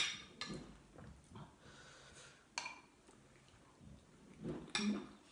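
A metal spoon clinks sharply against a glass jar of chili dip sauce, followed by a few faint clicks of utensils and, near the end, soft mouth sounds of eating.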